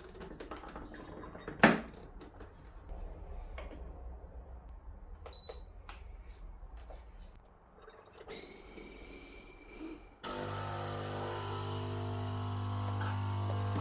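Clicks and a sharp clunk of the capsule coffee machine being handled. About ten seconds in, the Hibrew 4in1 machine's pump starts with a steady hum as it begins brewing the Dolce Gusto capsule.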